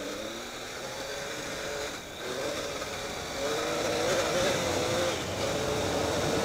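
Triumph Tiger 800 XCx's three-cylinder engine accelerating hard on a gravel road, with a brief dip about two seconds in at a gear change. The engine and the rush of wind and tyres grow louder as speed climbs.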